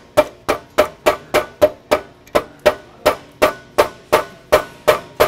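A hammer tapping the upper drive shaft of an Allen MSP450 riding trowel through its bearings: a steady run of about sixteen sharp metal strikes, about three a second, each ringing briefly.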